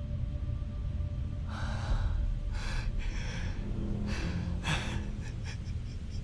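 A man sobbing, with about five gasping, breathy sobs in the middle of the stretch over a low steady drone.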